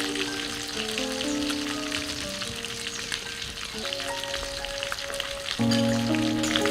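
Fish frying in hot oil: a steady crackling sizzle, under background music of held notes that grows louder near the end.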